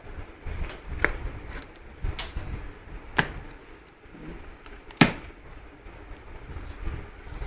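A taped cardboard shipping box being opened by hand: handling and scraping with several sharp clicks and knocks, the loudest about five seconds in.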